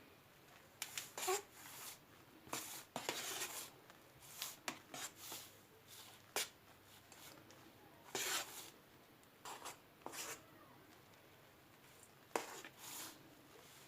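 Quiet, irregular scrapes and light taps of a utensil smoothing a cream topping in a dish, in short strokes with brief pauses between them.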